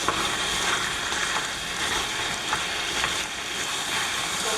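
Steady crackling, sizzling hiss with small ticks scattered through it.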